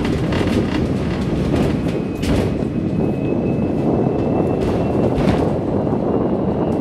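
Hong Kong double-decker tram running along its street track, heard from on board: a steady low rumble with irregular sharp knocks of the wheels on the rails, and a faint thin high whine from about two to five seconds in.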